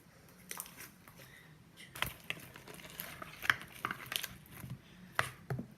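Sticky homemade glue-and-borax slime being kneaded and stretched by hand, giving irregular sticky clicks and crackles that come thickest from about two seconds in.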